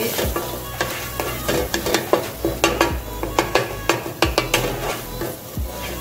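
Grated garlic sizzling as it browns lightly in hot olive oil, while a wooden spoon stirs and scrapes it around the pan, knocking on the pan bottom a few times a second.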